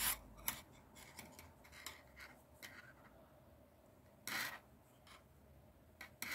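Faint clicking and rubbing of metal double-pointed knitting needles and acrylic yarn as stitches are worked by hand, with one brief louder rustle about four seconds in.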